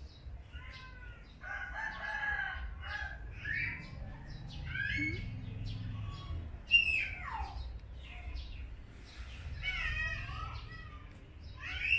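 Animal calls, one after another, each pitched and some gliding, with one sliding steeply down about halfway through. A low rumble comes and goes underneath.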